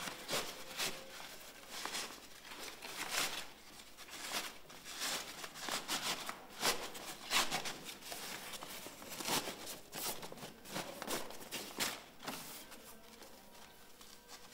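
Breathable roofing membrane of a roof-window underfelt collar rustling and crinkling as it is handled and fed under a timber batten by hand, in irregular crackles that die down near the end.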